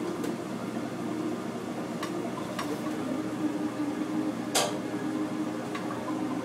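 A few light metal clinks of a utensil against a metal sauté pan and plate as chicken pieces are lifted out and plated, the sharpest about four and a half seconds in, over a steady machinery hum.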